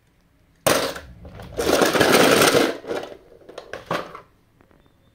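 Die-cast toy cars clattering and rattling together in a plastic tub as a hand rummages through them. It starts suddenly under a second in, is loudest in the middle, and ends with a few separate clicks.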